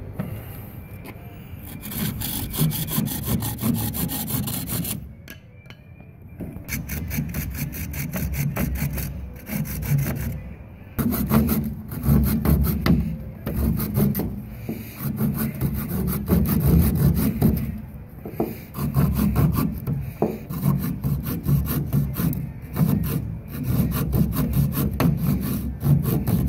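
Small hand saw cutting into a thin wooden stick with quick back-and-forth strokes. There is a short pause about five seconds in.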